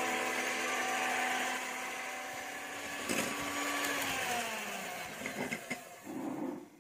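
Electric hand mixer running, its twin wire beaters whisking egg whites into foam in a ceramic bowl. The motor's whine slides down in pitch about four seconds in, and the sound fades and sputters out near the end.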